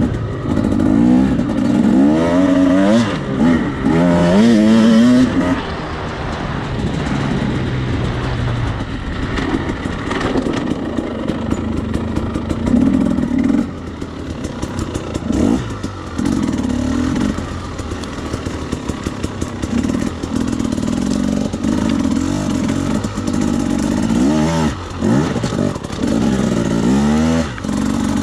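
Husqvarna enduro dirt bike engine heard from on board, revving up and down as the throttle opens and closes on a trail ride, with the sharpest rises and drops near the start and again near the end.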